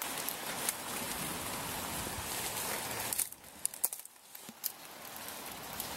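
Rain falling steadily on wet leaves, a steady hiss that drops off about three seconds in. Scattered light crackles of footsteps on wet leaf litter follow.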